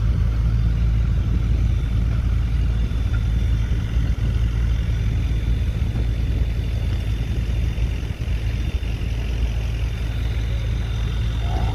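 A truck engine idling, a steady low rumble.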